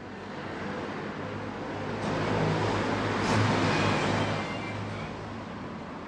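A vehicle passing by: a rushing noise with a low hum that grows louder to a peak about three to four seconds in, then fades.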